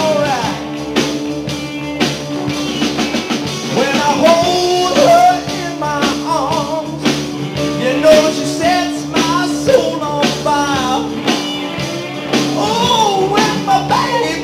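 A live rock band playing a soul-rock number with electric guitars, a bass line, drums and keyboard, a wavering lead melody on top. Between sung lines of the chorus.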